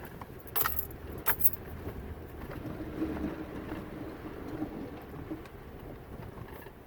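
Pickup truck driving slowly on a sloppy, snow-covered dirt road, heard from inside the cab as a steady low rumble, with two sharp rattles in the first second and a half.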